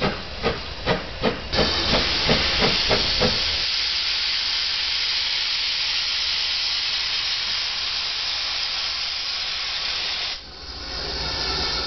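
Ex-GWR 57xx pannier tank steam locomotive hissing steam from its open cylinder drain cocks. For the first three seconds sharp exhaust beats, about three a second, sound over the hiss and then fade. The steady hiss stops abruptly near the end.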